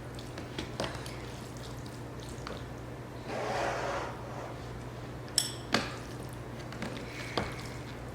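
Small tableware sounds over black bean noodles: a few sharp clicks and a short ringing clink of a utensil against a dish, and a soft wet, squishy noise of the noodles being handled about three seconds in, over a steady low hum.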